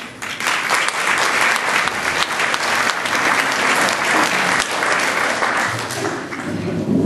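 Audience applauding, a dense clapping that starts about half a second in and dies down near the end.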